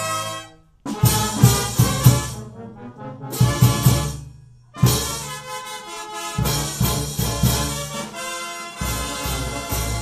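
Brass band playing a lively tune: trumpets, trombones and sousaphones over bass drum, snare drum and clashing cymbals. The music cuts out abruptly for a moment about half a second in and again near the middle.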